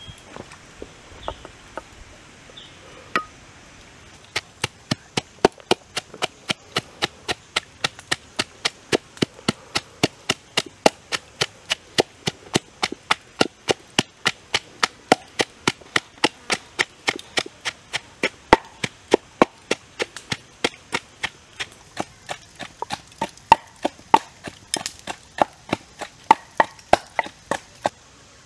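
Wooden pestle pounding shallots, chillies, salt and herbs into a paste in a wooden mortar: a few scattered taps, then from about four seconds in a steady run of sharp wooden knocks at about three a second.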